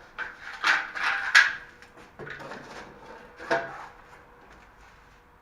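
Short knocks and scrapes from tiling tools and tiles being handled, several in a row, the loudest about a second and a half in.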